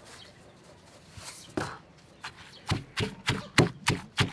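Wooden pestle pounding chopped green chillies and sugar in a mortar: a single stroke about one and a half seconds in, then steady strokes about three a second from a little past the middle.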